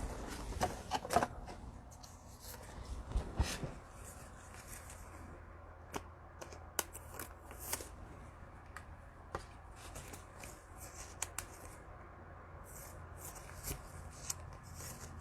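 Football trading cards and cello pack wrappers being handled: light rustling with scattered sharp clicks, busier and louder in the first few seconds.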